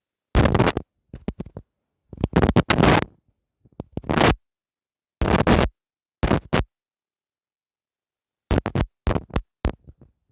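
Irregular bursts of scratching noise, each under a second long, with dead silence between them and a longer gap in the middle.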